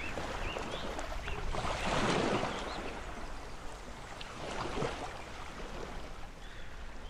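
Small waves washing over a pebble shore in a steady hiss that swells twice, with a few short, high chirps now and then.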